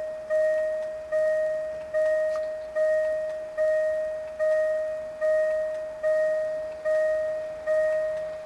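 Level-crossing warning bell ringing: one steady-pitched ding about every 0.8 seconds, each ring dying away before the next strike, sounding as a train approaches the crossing.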